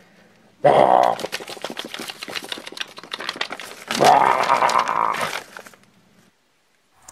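A monster growl: two loud roars, one about half a second in and one about four seconds in. Between and under them is a fast crackle and rustle of a paper cutout puppet being shaken. It stops about a second before the end.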